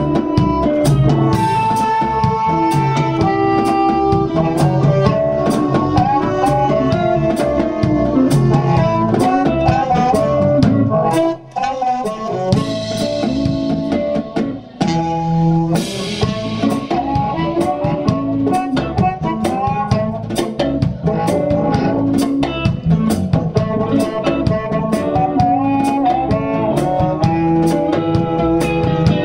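Live blues band playing: a harmonica plays the lead line over drums with a steady cymbal beat, guitar and bass. The band stops briefly twice, about 11 and 15 seconds in.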